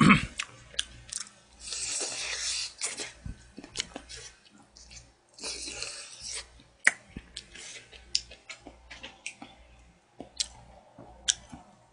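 A person eating close to the microphone: wet chewing sounds with scattered sharp clicks, and two longer slurps, about two seconds in and again around six seconds, as noodles are sucked in.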